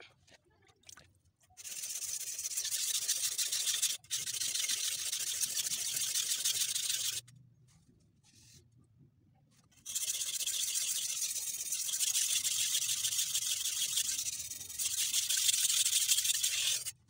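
Steel blade of a Pirge bullnose knife being stroked rapidly back and forth on a wet whetstone of roughly 1000 grit, a steady rasping scrape. It comes in two runs of about five to seven seconds each, with a pause of about two and a half seconds between them.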